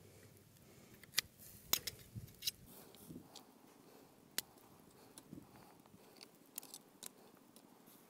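Metal barbecue tongs clicking against each other and tapping the wire grill grate as meat is turned over the embers. Several sharp clicks come at uneven intervals, the loudest in the first few seconds.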